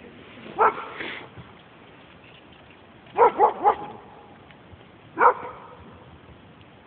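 A dog barking in short sharp barks: one bark, then a quick run of three a few seconds later, then one more.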